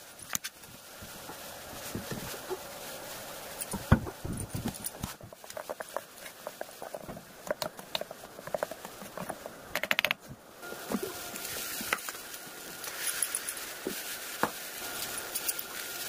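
A steel spoon clinking, tapping and scraping against a small steel bowl while stirring chutney: irregular metal-on-metal clinks, with a quick run of taps about ten seconds in.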